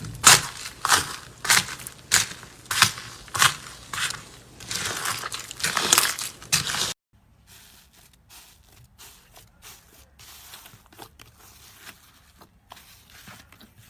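Slime being pressed and squeezed by hand, with a loud crackling crunch about every half second. About halfway through it cuts suddenly to much quieter, scattered crackles and pops.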